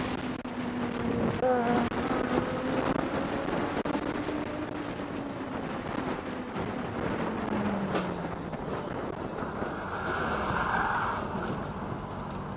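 Vehicle engine and road noise with wind on the microphone, heard from a vehicle in highway traffic. The engine's pitch falls as it slows about two-thirds of the way in. There is a single sharp click, then a short rush of higher noise near the end.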